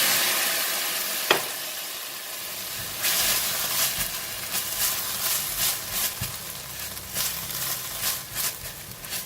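Pounded chili and shrimp paste frying in oil in a pan, sizzling hard just after a little water is added, the hiss easing off over the first few seconds. A spatula clacks sharply about a second in, then stirs and scrapes the paste with many short clicks.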